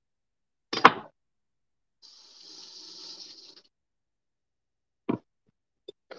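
A knock about a second in, then water running briefly from a kitchen tap, an even hiss lasting about a second and a half, followed by a short click.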